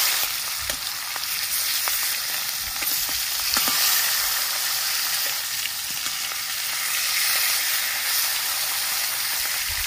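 Rohu fish steaks sizzling as they shallow-fry in hot oil in a metal kadai. A few light taps come from the metal spatula against the pan.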